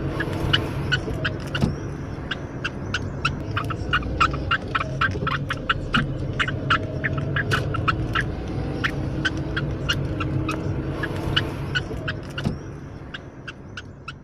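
Budgerigar squeaking over and over in short, sharp, high cries, several a second, over a steady low hum; fading near the end. The squeaking is pitiful, and the uploader describes it as a fit (seizure).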